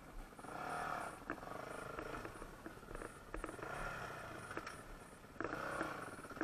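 Off-road dirt bike engine revving up and down in short throttle blips, about four swells, as the bike is worked slowly over rocks, with scattered knocks of tyres and stones.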